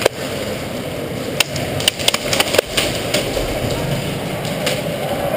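Scattered sharp clicks and cracks of an airsoft skirmish in an indoor arena: airsoft gun shots and BBs striking plywood walls, a few at a time, over a steady hum.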